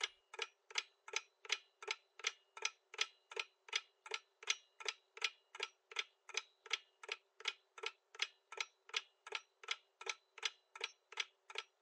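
Quiz countdown-timer sound effect: steady clock-like ticking, just under three ticks a second, marking the time left to answer.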